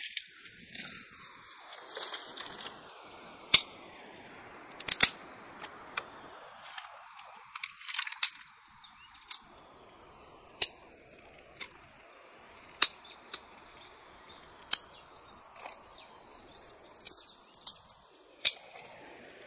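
Sharp clicks or knocks at irregular intervals, roughly one a second, over a faint steady high insect drone.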